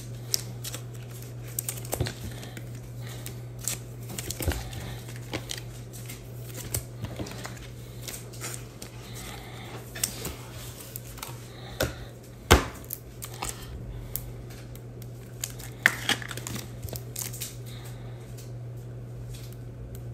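Trading cards being handled and slid into plastic penny sleeves and rigid toploaders: light plastic crinkling with scattered small clicks and taps, one sharper tap past the middle, over a steady low hum.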